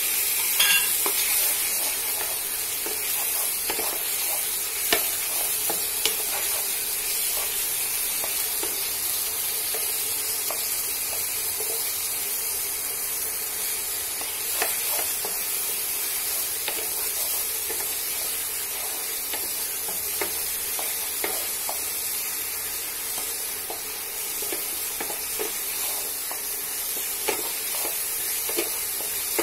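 Onion and garlic paste with sliced onions and tomato sizzling steadily in hot oil in a non-stick kadai, stirred with a wooden spatula that knocks and scrapes against the pan now and then.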